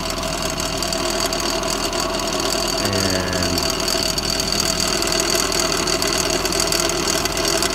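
Torque tube of a 2005 C6 Corvette automatic turning with the engine running, heard up close under the car: a steady mechanical running noise with a constant high whine. This is the noise of a worn torque tube that needs rebuilding.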